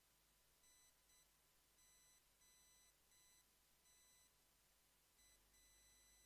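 Near silence, with only a faint high electronic tone that switches on and off every half second or so.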